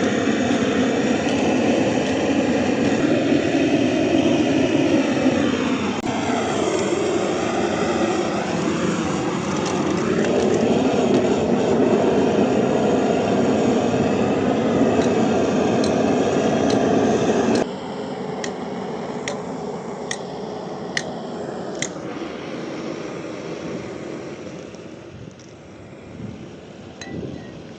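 A heavy engine running loudly, its pitch sliding down and back up a few times. It cuts off abruptly partway through, leaving a quieter background with a handful of sharp taps.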